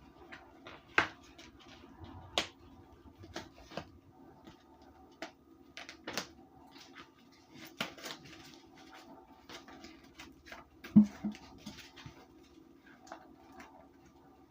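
Hands unwrapping and handling wrapped cornstarch bricks: scattered crinkles, light clicks and taps, with a louder knock about eleven seconds in.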